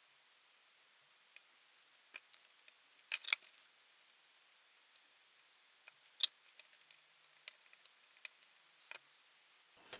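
Scattered small clicks and taps from handling a printed circuit board and fitting an electrolytic capacitor's wire leads through it. A short cluster of sharper clicks comes about three seconds in.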